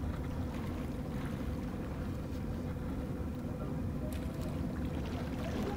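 Boat engine running with a steady low drone and a faint hum.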